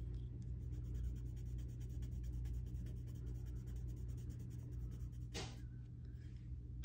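Derwent Lightfast coloured pencil scribbling quickly back and forth on paper, laying down a colour swatch, over a low steady hum. One short knock about five seconds in.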